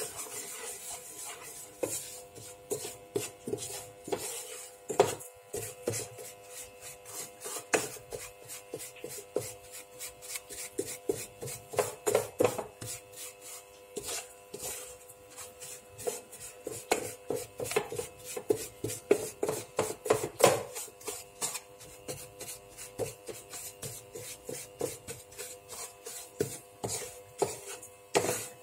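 Wooden spatula scraping across a non-stick frying pan, stirring a dry crumbly mixture in repeated strokes, about two to three a second, over a faint steady hum.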